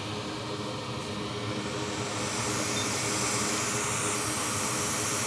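Steady rush of air like a fan or blower, with a faint low hum underneath. The hiss grows stronger and brighter about two seconds in, then holds steady.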